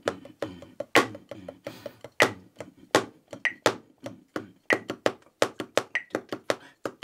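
Wooden drumsticks playing a polyrhythmic rudimental snare solo on a Reflexx rubber practice pad: dry, rapid taps in shifting groupings with louder accented strokes. A metronome beeps about every 1.25 seconds.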